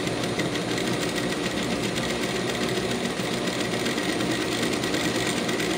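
Industrial sewing machine running steadily at a fast, even stitching rhythm as it sews a gathering seam in the fabric.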